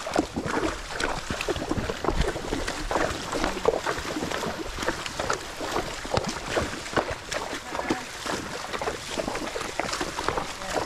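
Horses walking on a trail, a steady run of irregular hoof steps, knocks and rustles.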